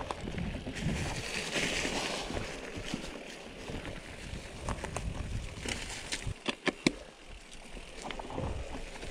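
Mountain bike rolling downhill over dry leaves and dirt on a forest singletrack: steady tyre noise with wind rumble on the microphone, and a quick cluster of sharp clicks and knocks from the bike about two-thirds of the way through.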